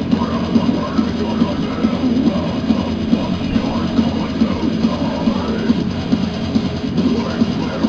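Loud rock music with a pounding drum kit.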